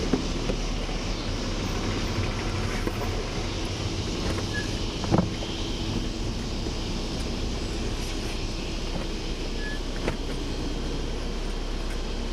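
Car engine running steadily, heard from inside the cabin, with a short knock about five seconds in and a fainter click near ten seconds.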